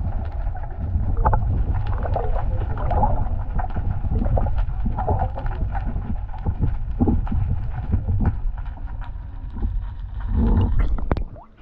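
Muffled underwater noise from a submerged camera: a steady low rumble of moving water with scattered clicks and knocks and some gurgling. It cuts off suddenly near the end.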